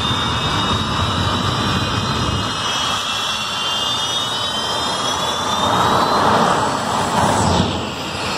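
Green Mamba jet car's jet engine running: a steady roar with a high whine that slowly rises in pitch, growing louder about six to seven seconds in.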